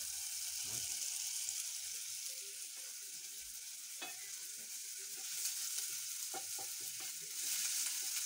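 Chopped red onions sizzling in oil in a metal pot, with a steady hiss. From about halfway through, a wooden spoon stirs them, scraping against the pot, and the sizzle swells near the end.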